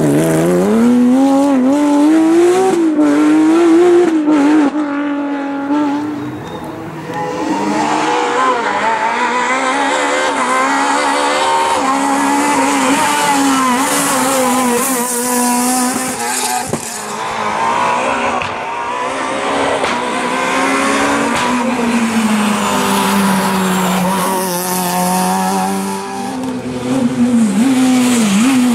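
Rally cars, among them a Porsche 911 and a Renault Clio, driven flat out through tight bends one after another: engines revving hard, the pitch climbing and dropping with throttle and gear changes, with a short lull between cars.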